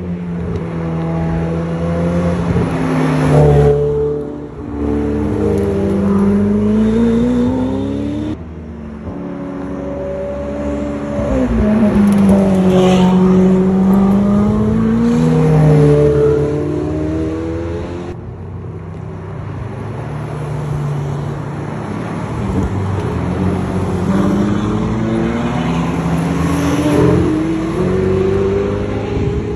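Supercar engine revving and accelerating, its pitch climbing and dropping through gear changes and swelling and fading as the car passes. The sound breaks off abruptly twice, at about eight and eighteen seconds in, where the clips are cut together.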